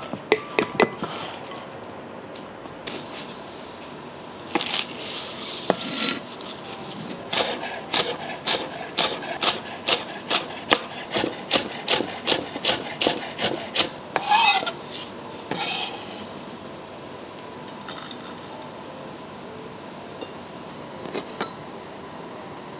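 Chef's knife chopping spring onions on a wooden cutting board: a steady run of sharp knocks, about two to three a second, with some scraping of the blade on the board before and after. A few clicks of a utensil in a glass mixing bowl come near the start.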